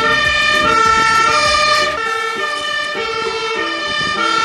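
Fire engine's two-tone siren alternating steadily between a high and a low note, each held about half a second. It comes from a MAN/Magirus aerial ladder truck pulling away. A low engine rumble sits under the siren for the first two seconds and then drops out.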